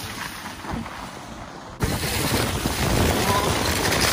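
A sled sliding fast down a packed snow trail: a steady hiss of the sled on snow mixed with wind rushing over the microphone, which gets suddenly louder a little under two seconds in.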